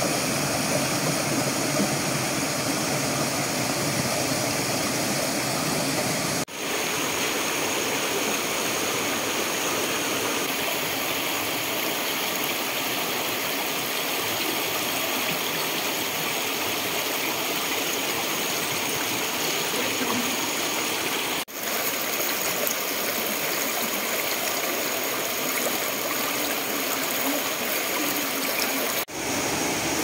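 Mountain stream rushing and splashing over rocks, a steady wash of water noise that dips out briefly three times where the recording changes.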